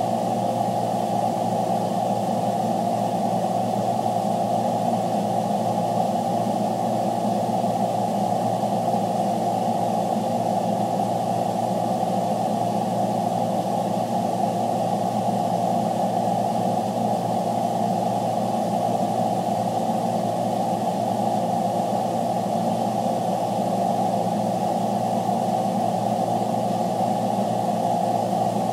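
Freightliner truck's engine running steadily, heard from inside the cab as an even hum that does not change.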